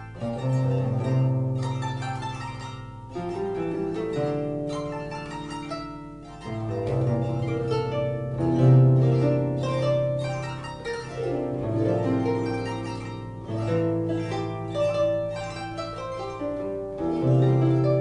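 Harp playing a slow instrumental piece: plucked melody notes ring and fade over deep bass notes that change every couple of seconds.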